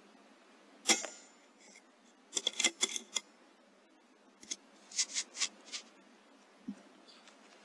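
A series of sharp clicks: one loud click about a second in, then a quick cluster of clicks around the middle and another cluster a couple of seconds later.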